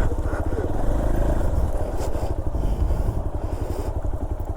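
Motorcycle engine running at low speed with a rapid, even beat.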